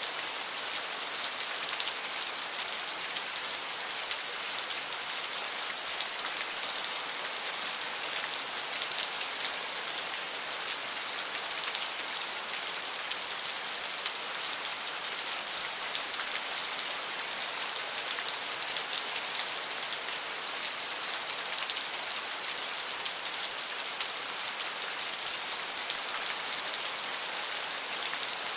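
Steady rain falling: a dense, even hiss of countless drops, brightest in the high end, unchanging throughout.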